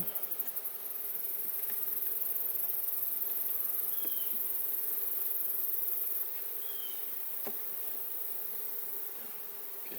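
Honeybee colony humming steadily from an opened hive box full of bees, a little bit noisy, which the beekeeper fears means they might not have a queen. The hum drops slightly about six seconds in.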